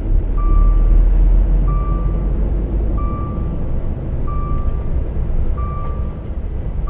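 Truck reversing alarm beeping steadily, a single tone about once every second and a quarter, over the low rumble of a truck engine.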